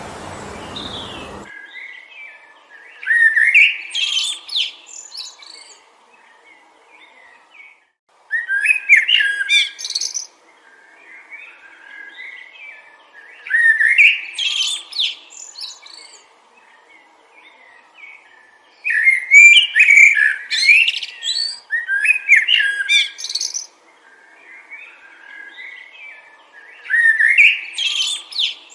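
A songbird singing the same phrase of quick chirping notes over and over, about every five seconds, with short quiet gaps between. A steady wind rush cuts off abruptly about a second and a half in.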